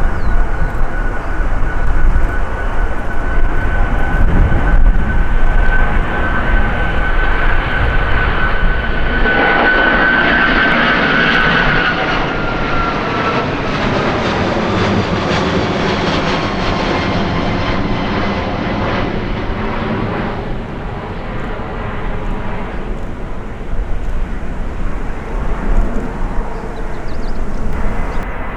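Large jet aircraft flying past: a steady high engine whine that drops in pitch about twelve seconds in as the aircraft passes, with broad engine noise swelling to a peak around the pass and then fading away.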